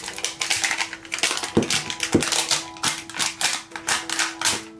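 The sticky plastic wrapper of an L.O.L. Surprise toy ball crinkling and crackling as it is peeled off by hand, in quick irregular crackles. Background music plays a steady note underneath.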